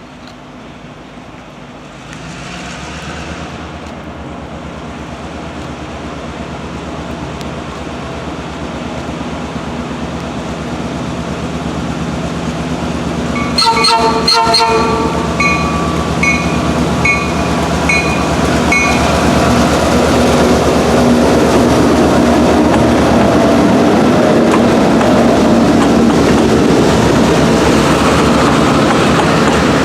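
Southern 630, a 2-8-0 steam locomotive, approaching with its train and growing steadily louder. About halfway through it gives a sharp multi-tone whistle blast, followed by a few seconds of short repeated ringing notes. It then passes close by with a loud, steady rumble of engine and wheels.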